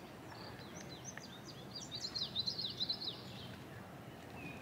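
A songbird sings one rapid, jumbled phrase of short high falling chirps, lasting about three seconds and loudest around two to three seconds in. Steady background noise runs under it.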